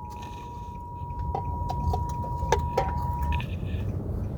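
Emergency Alert System attention signal, the steady two-tone chord of 853 and 960 Hz, coming through a car radio over low road rumble; it cuts off about three and a half seconds in. The tone announces an emergency broadcast, here a flood warning.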